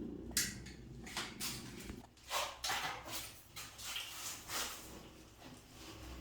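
Irregular clicks, taps and scrapes of hands and tools working the flexible supply hose connection on a toilet. A low steady hum stops about two seconds in.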